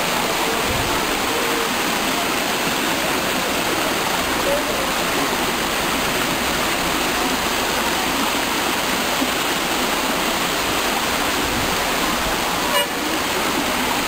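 Waterfall water rushing over rocks: a loud, steady rush of noise.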